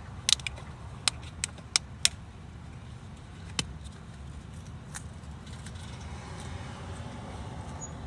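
A series of sharp, light clicks and taps, about six in the first two seconds and a couple more later, over a steady low rumble.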